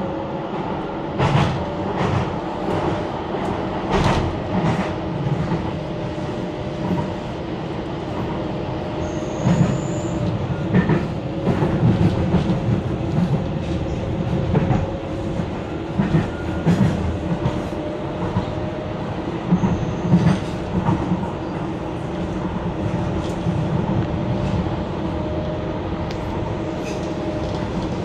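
Docklands Light Railway train running on its track, heard from inside the car: a steady hum with frequent irregular clicks and knocks of the wheels over the rails and points, and two brief high squeaks.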